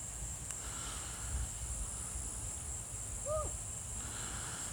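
Crickets chirping, a steady high trill throughout, with one short rising-and-falling call about three seconds in.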